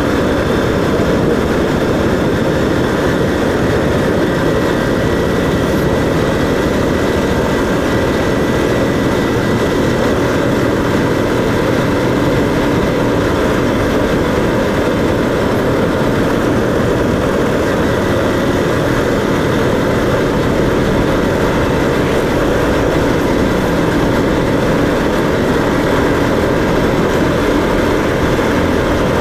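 Steady low rumble of the moving vehicle carrying the camera: engine running and road noise at an unchanging pace.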